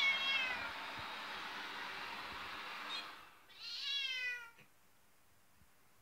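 A cat meowing twice, each call falling in pitch, the second about three and a half seconds in and the louder one. Under the first, a robot vacuum cleaner runs with a steady whir that cuts off about three seconds in.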